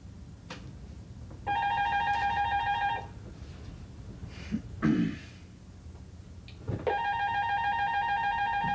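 Desk telephone ringing twice, each ring about a second and a half long with a few seconds' pause between, a brief short noise falling in the pause.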